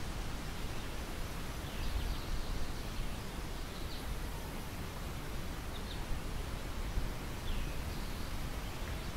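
Wind through a field of ripe wheat: a steady rustling hiss with a fluctuating low rumble of wind on the microphone. A few faint, short bird chirps come through now and then.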